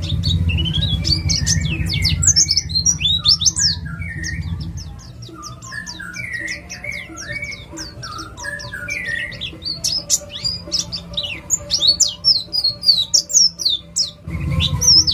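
White-eye (pleci) singing a rapid run of high, sharp falling notes, with lower warbling phrases mixed in from about five to ten seconds in. A low hum underneath drops away about five seconds in and returns near the end.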